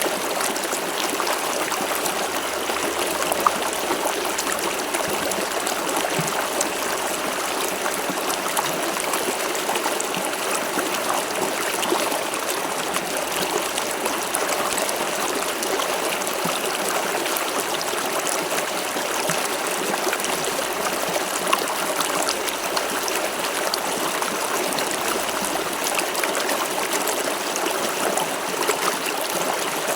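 River water flowing steadily over stones, a continuous rushing with small splashes and trickles throughout.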